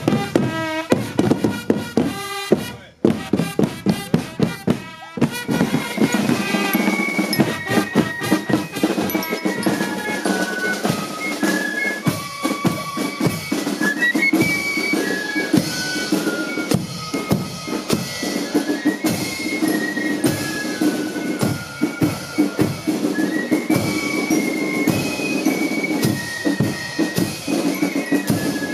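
Marching band music: a drum beat alone for the first five seconds or so, broken briefly near three seconds, then a high melody of short stepping notes comes in over the drums.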